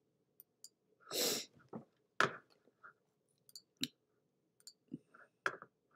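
Faint, scattered clicks and taps of a computer being operated, with a short rush of noise about a second in.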